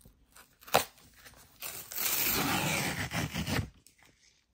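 Rigid cardboard mailer envelope being torn open along its sealed flap: a sharp click a little under a second in, then a continuous tearing rip lasting about two seconds.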